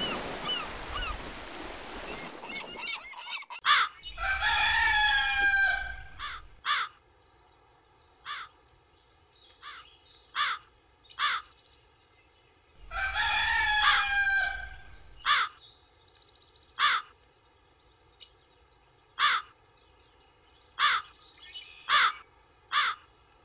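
A rooster crowing twice, each crow about two seconds long, about ten seconds apart. Short, sharp crow caws repeat between the crows and after them. At the start, a steady wash like surf with faint gull cries fades out.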